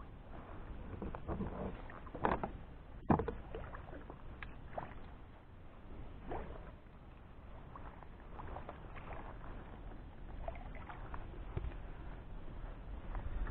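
Water splashing and lapping around a kayak as a hooked catfish swirls at the surface alongside, with scattered knocks and clicks from the hull and fishing gear. A sharp knock about three seconds in is the loudest sound.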